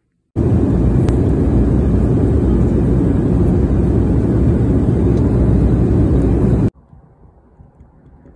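Jet airliner cabin noise in flight, heard from a window seat over the wing: a loud, steady rush of engines and airflow, heaviest in the low end. It cuts off abruptly near the end, leaving only faint outdoor background noise.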